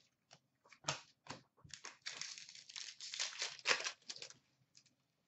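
A few sharp clicks, then a stretch of crinkling and tearing as a hockey card pack wrapper is ripped open and handled.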